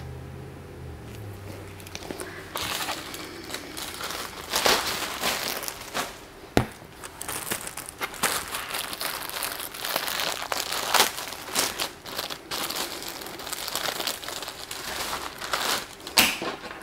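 Packaging crinkling and rustling in irregular crackly bursts as a bathing suit is handled and unwrapped, starting about two seconds in.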